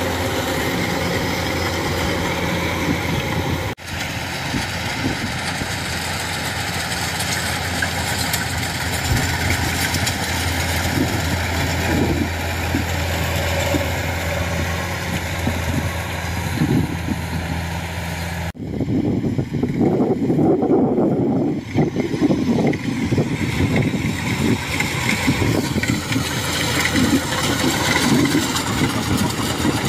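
Kubota DC-105X rice combine harvester running under load as it cuts and threshes, a steady diesel drone. The sound breaks off sharply twice, about four seconds in and again past the middle, and the last stretch is rougher and noisier.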